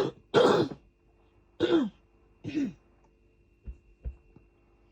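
A person's coughing fit: four harsh, chesty coughs in quick succession over the first three seconds, then two soft low knocks. The coughing is from an illness they are still getting over.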